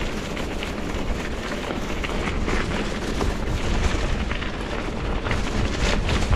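Wind buffeting the microphone of a camera on a mountain bike riding down a gravel road, a constant low rumble, with frequent sharp clicks and rattles from the tyres on loose stones and the bike shaking over the surface.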